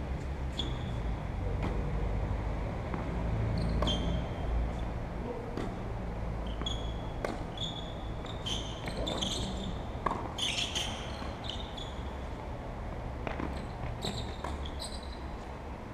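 Tennis ball being struck by rackets and bouncing on the court during a rally: sharp knocks at irregular intervals over a steady low rumble.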